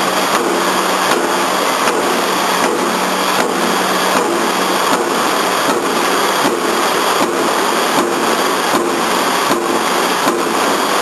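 Mechanical power press of a single-station CNC punching machine punching holes in steel plate in an even rhythm, about four strokes every three seconds, over a steady machine hum.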